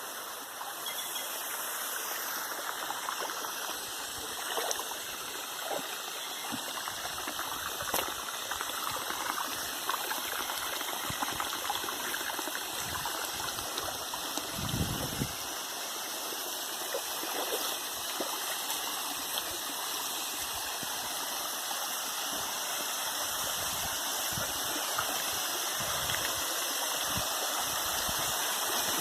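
Waterfall water running and splashing steadily, with a few brief low bumps, the strongest about halfway through.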